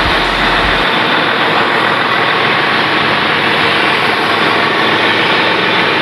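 Heavy-equipment diesel engine running steadily at close range, a dense even noise. A deep low hum under it drops out about a second in.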